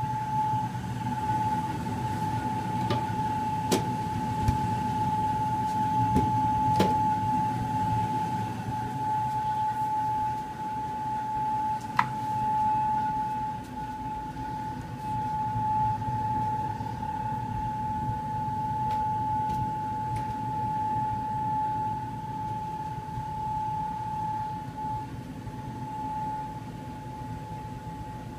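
HVAC unit running with a steady whining tone over a low rumble, with a few sharp clicks. This is the strange noise that carries through all the vents of the house.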